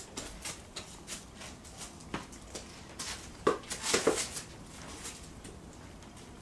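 A toddler's footsteps and light scuffs and rattles as he carries a small plastic bucket of leaves, with a couple of louder knocks about three and a half and four seconds in.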